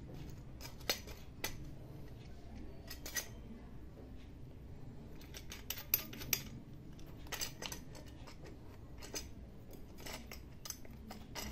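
Irregular light metallic clicks and clinks as the wheel guard's clamp band is worked onto the gear-head collar of an angle grinder that is switched off.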